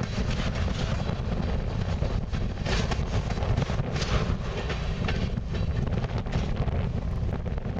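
Freight train of tank cars rolling past close by: a steady rumble of steel wheels on rail, with a few sharp clacks from the wheels about halfway through.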